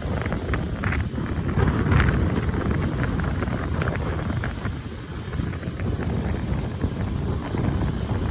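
Heavy earthmoving machinery running with a low rumble, with short clanks and rattles scattered through it and wind buffeting the microphone.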